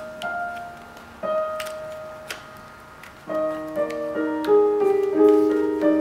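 Background piano music: single held notes at first, then fuller and louder chords from about halfway through.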